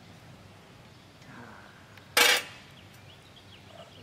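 A long-handled hand tool swung down strikes the street pavement once with a loud clank about two seconds in. Faint bird chirps follow.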